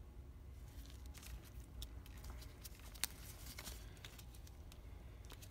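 Faint scattered clicks and rustling of gloved hands working a sensor's electrical plug loose, with one sharper click about three seconds in.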